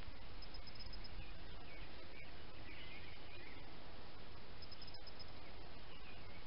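Outdoor ambience: a steady hiss with faint birdsong around the middle, and two short runs of high, evenly spaced ticks, one about a second in and one about five seconds in.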